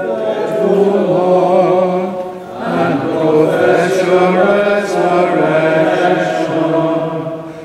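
Unaccompanied liturgical chant sung by a male voice: slow phrases of held notes that step up and down, with a short break about two and a half seconds in.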